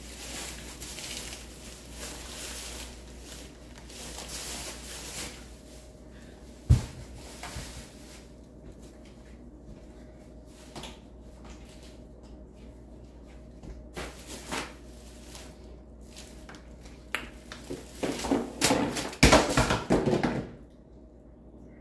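Someone moving about and handling things: scattered clicks and rustles, a single sharp thump about seven seconds in, and a burst of louder rustling and knocking near the end.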